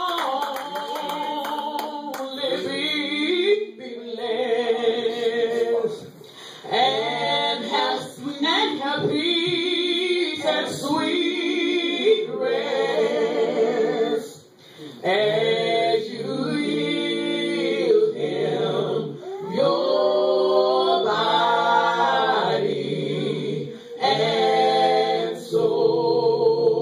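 Small gospel praise team singing a slow hymn a cappella, long held phrases with brief breaks between them.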